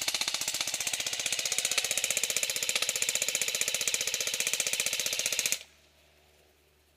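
Airsoft electric gun (AEG) firing a long full-auto burst, a rapid even stream of gearbox cycles at about twenty shots a second. It cuts off sharply about five and a half seconds in.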